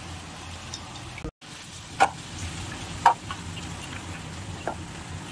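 Steady low kitchen hum with three sharp clicks of steel cookware being handled, the loudest two about two and three seconds in. The sound cuts out for a moment about a second in.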